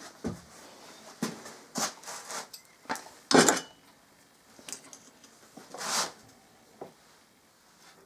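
Handling noises at a workbench: scattered knocks and rustles of hands and a sleeve working around the air hoses of a small oscillating engine, with a few short hissy bursts. The loudest burst comes about three and a half seconds in and another near six seconds. The engine is not yet running.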